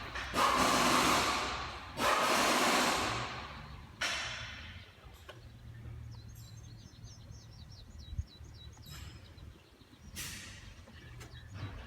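Outdoor background: loud rushing swells of noise that start sharply and fade, three in the first four seconds and another near the end, with a run of faint bird chirps in between.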